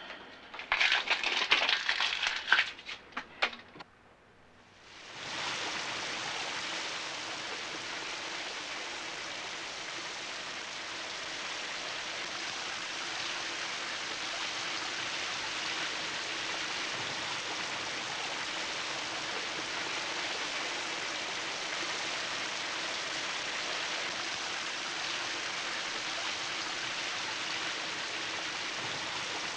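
A brief scraping rattle, typical of a shower curtain's rings being drawn along the rod. Then, about five seconds in, the shower is turned on and water sprays steadily onto the tub and tiles.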